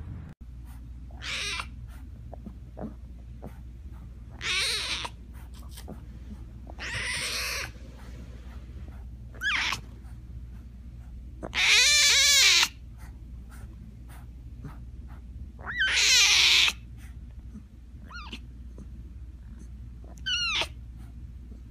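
Big-cat cubs, a lion cub and then a white tiger cub, giving high-pitched, meow-like cries: about eight separate calls, most of them short, with two longer and louder wails about halfway and three-quarters through. A steady low hum lies under them.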